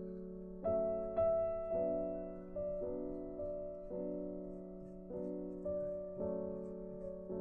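Gentle background piano music: slow notes and chords struck about once or twice a second, each dying away.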